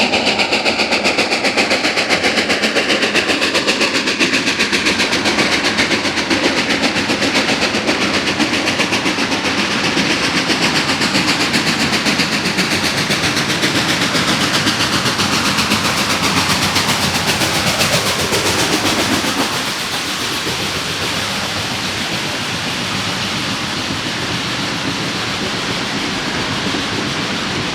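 Steam locomotive working hard, its smokestack exhaust chuffing in quick, even beats (stack talk) over the train's running noise. The sound drops a little in loudness about two-thirds of the way through.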